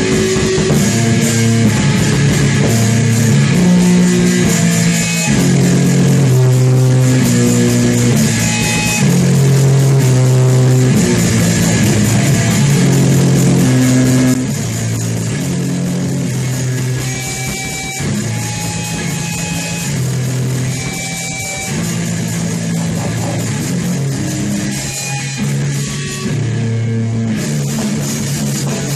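Doom metal: slow, heavy distorted guitar riff over drums. About halfway through it drops back to a quieter, sparser part with a few held higher notes.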